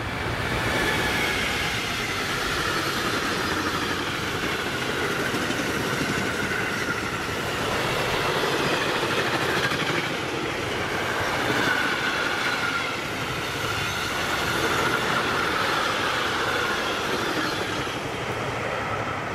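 Container freight train rolling past on the track, with a high, wavering squeal from the wheels; the sound fades at the very end as the last wagons go by.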